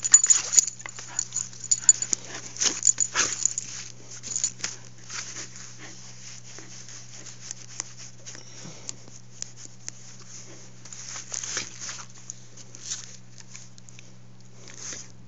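Australian cattle dog play-fighting and mouthing a person's hand: quick scuffling and snapping clicks, busy for the first few seconds, then sparser.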